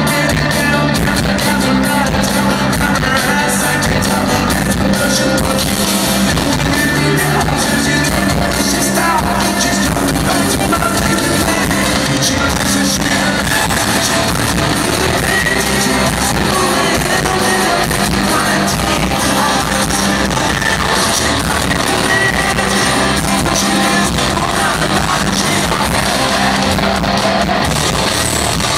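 Loud live rock music from the crowd: a full rock band playing steadily with a male lead singer.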